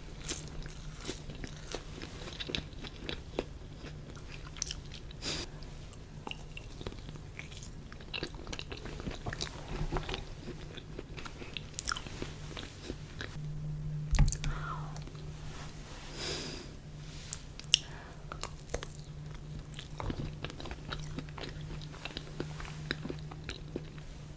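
A person biting and chewing food, with scattered crunches and sharp clicks, the loudest about fourteen seconds in, over a steady low hum.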